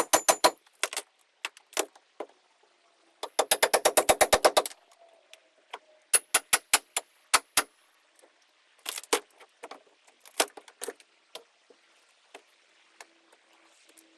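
Demolition work tearing out rotted stringers and foam. Two short bursts of rapid hammering at about ten hits a second, each lasting a second or so, are followed by irregular single knocks and clatter.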